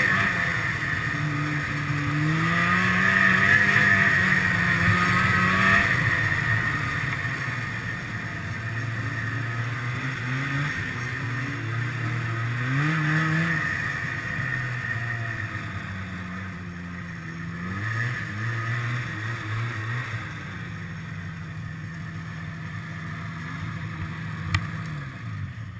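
Snowmobile engine running under way, its pitch rising and falling as the throttle is worked. It settles lower, steadier and quieter over the last several seconds as the sled slows. There is one sharp click near the end.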